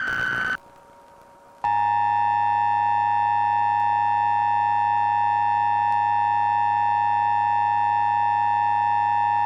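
The tail of an Emergency Alert System digital header burst, a buzzing data tone that ends within the first second. After a short pause, the EAS two-tone attention signal starts about a second and a half in and holds steady and loud: the alarm that announces an emergency alert.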